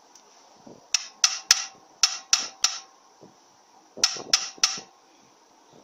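Hammer striking a pin punch to drive a roll pin into the selector shaft of an automatic transmission case: nine sharp metallic taps in three quick sets of three, each with a short ring.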